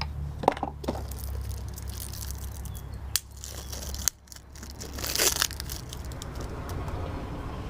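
Crinkling and rustling of packaging as a new spin-on oil filter is taken out and handled, with a few sharp clicks, over a steady low hum.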